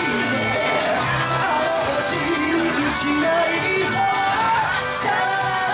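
Live rock band: a singer's lead vocal over electric guitar and electric bass, with steady cymbal strokes keeping the beat.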